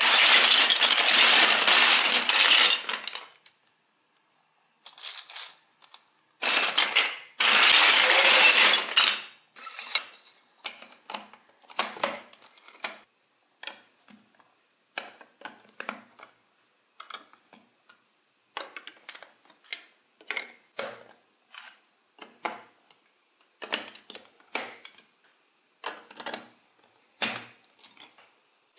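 A pile of chunky plastic building blocks clattering loudly in two long bursts of a few seconds each, then scattered clicks and taps as single blocks are picked out and pressed together.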